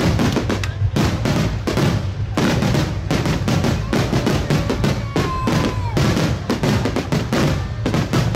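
Rapid barrage of aerial firework shells bursting, booms and bangs following one another irregularly several times a second over a continuous low rumble, as in a finale volley.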